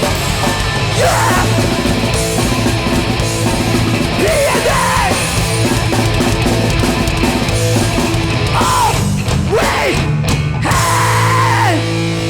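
Live hardcore punk band playing loud, with distorted electric guitars, bass and drums, and yelled vocals over it.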